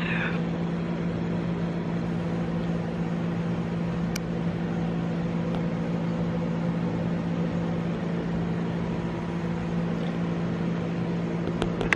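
Room air conditioner running with a steady low hum, and a couple of faint clicks.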